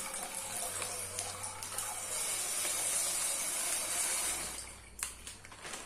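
Dried white hominy (canjica) kernels poured from a plastic packet into an aluminium pot of water: a steady rushing hiss that dies away about four seconds in. A single click follows about a second later.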